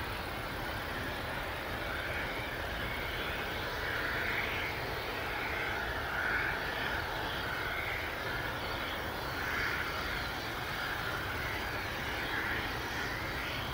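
Airbus A321neo airliner's twin jet engines running at taxi power as it rolls along the taxiway: a steady engine noise that swells slightly now and then.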